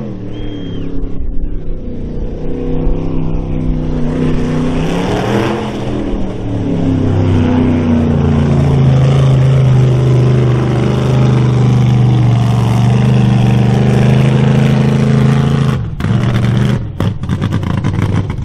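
Chevy mud truck's engine revving hard as it churns through a mud pit. The revs climb about five seconds in and are held high and steady, then break off abruptly near the end.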